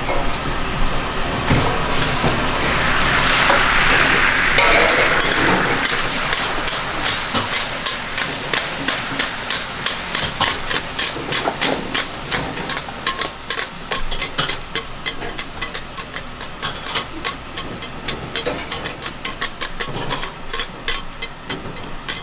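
Metal spatulas striking and scraping a flat-top teppan griddle in quick, fairly even strokes, about four a second, while beaten egg is scrambled and spread for an omurice. A burst of sizzling comes a few seconds in, as the egg meets the hot plate.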